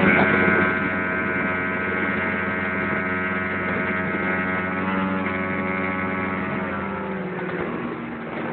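Large outboard motor on a Bullet bass boat running hard at high speed: a loud, steady engine tone with strong overtones, easing off slightly near the end.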